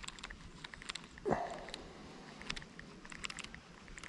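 Fishing rod and reel handled during a lure retrieve: faint, irregular clicking throughout, with one brief louder rustle a little over a second in.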